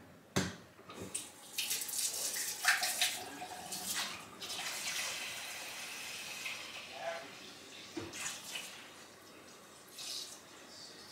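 Kitchen tap running cold water into a cooking pot, strongest for a few seconds and then tapering off. A couple of knocks from the pot or handling come in the last few seconds.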